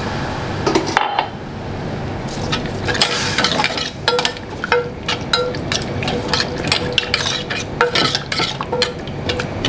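Water sizzling in hot oil and fried onion masala in a stainless steel pan, the hiss dying away about a second in; then a metal spoon stirring the thin gravy, clinking and scraping against the pan again and again.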